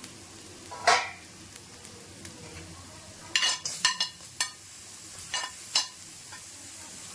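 Vegetables sizzling in oil in a metal kadai, with sharp clicks and scrapes of a spoon against the plate and pan as chopped capsicum is pushed in, one about a second in and a cluster between about three and six seconds in.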